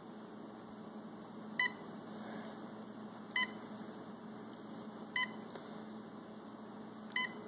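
A Humminbird fish-finder head unit giving four short electronic beeps, about two seconds apart, as its keypad buttons are pressed through the start-up menu.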